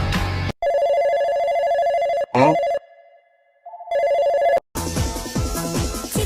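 Telephone ringing sound effect breaking into pop music: a warbling electronic ring, a brief rising sweep, a short pause, then a second ring before the music comes back in.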